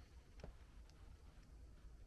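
Near silence: a low room hum with a few faint clicks.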